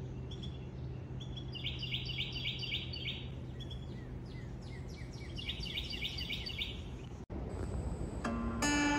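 A songbird singing two quick trills of rapidly repeated high notes, each about a second and a half long, over a steady low outdoor rumble. Near the end, after a brief drop-out, soft chiming music comes in.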